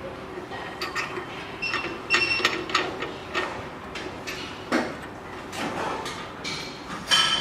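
Irregular metallic clicks and clinks, some ringing briefly, as a key is fitted and tightened in a key cutting machine's clamp.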